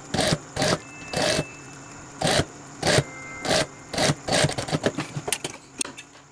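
Industrial sewing machine stitching in short stop-start bursts, about eight quick runs of a fraction of a second each, as elastic held slightly stretched is sewn along the edge of a mesh pocket. A quick run of clicks follows near the end.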